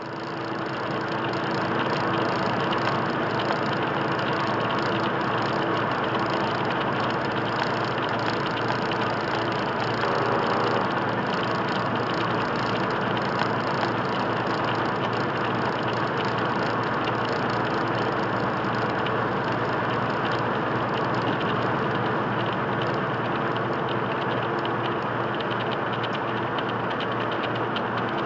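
Steady in-cab engine and road noise of a semi truck's diesel engine cruising at highway speed.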